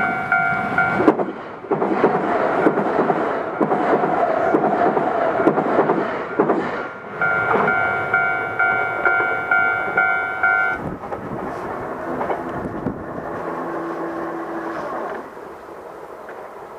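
Level-crossing warning bell ringing in a fast repeating ding. About a second in, a passing train with rhythmic wheel clacks drowns it out. The bell comes through again around seven seconds in and stops around eleven seconds, while train noise runs on and drops away near the end.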